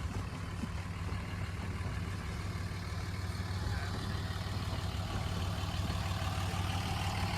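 Vehicle engine running steadily, a low hum that grows slightly louder.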